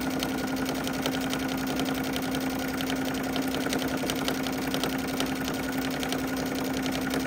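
Electric sewing machine running steadily at speed, its motor humming under rapid, even needle strokes as it stitches forward through about six layers of fabric without backstitching.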